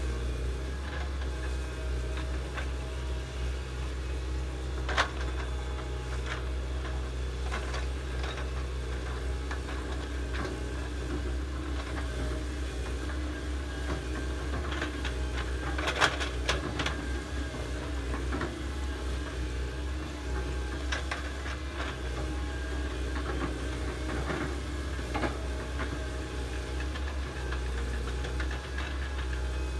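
Hydraulic excavators, a Komatsu nearest, running steadily as they dig a ditch through wet ground, with a low engine rumble. A few sharp knocks stand out, the loudest about halfway through.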